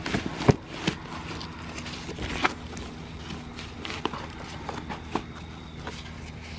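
Books being stacked by hand into a fabric bicycle trunk bag: a series of irregular knocks and thuds as they are set in and shuffled, the loudest about half a second in.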